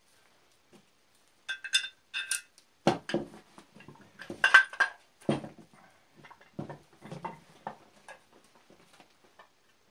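Cast-iron bench vise parts knocking and clinking as the vise body is fitted and screwed onto its swivel base: a few ringing metal clinks about a second and a half in, then a run of irregular metal-on-metal knocks and scrapes, the loudest near the middle.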